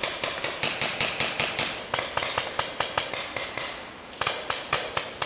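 Paintball markers firing: a rapid string of sharp pops at about six shots a second that slows after about two seconds, a pause of about a second, then another quick burst near the end.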